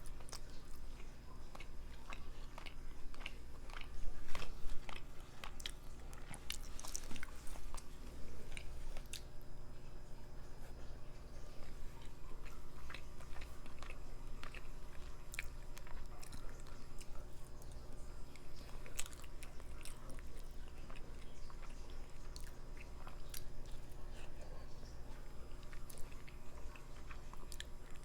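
A person chewing and biting a mouthful of rice and curry close to the microphone: a steady run of small mouth clicks, busiest in the first ten seconds and loudest about four seconds in.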